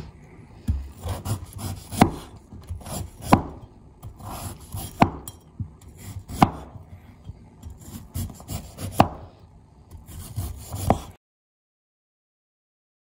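Kitchen knife shaving the skin off a fresh ginger root on a wooden cutting board: scraping and rubbing strokes, with the blade knocking sharply on the board every second or two. The sound cuts off abruptly about two seconds before the end.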